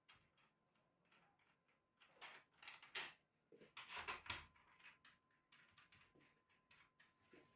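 Faint scratching and light knocks of a hand working against a wall, in a few short bursts from about two seconds in to past the middle, over a faint steady high tone.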